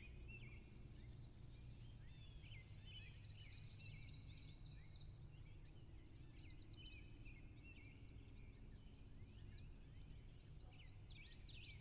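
Faint birdsong: many short high chirps and quick rising and falling notes from small birds, over a low steady background rumble.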